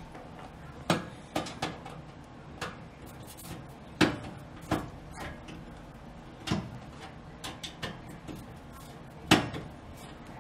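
Irregular metallic clicks and knocks of a Phillips screwdriver and screws against the broiler mounting inside a gas oven's enamelled steel cavity, as the broiler screws are taken out. The loudest knock comes near the end.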